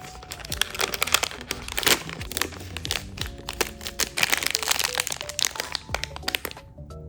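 Packaging crinkling and crackling as it is handled and opened, with dense crisp rustles that die away near the end, over soft background music.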